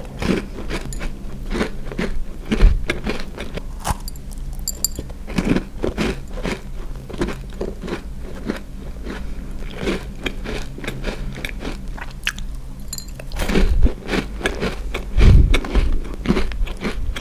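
Close-up crunching and chewing of a crisp sesame cookie, a dense run of irregular crackly crunches. A few dull low thumps, the loudest about three-quarters of the way through.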